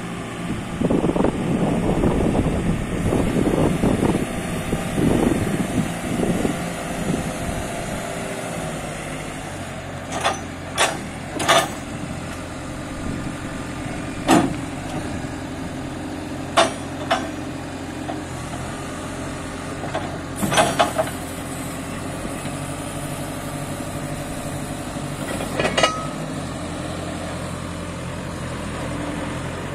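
JCB 535-140 telehandler's diesel engine running at a steady idle, with wind buffeting the microphone for the first several seconds. About eight short, sharp noises sound between roughly ten and twenty-six seconds in.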